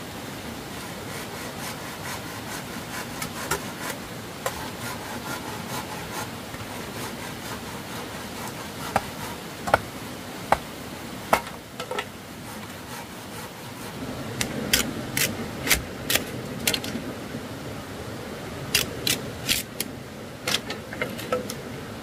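Hand work on wood: rubbing and scraping, with runs of sharp knocks coming several in a row, about half a second apart.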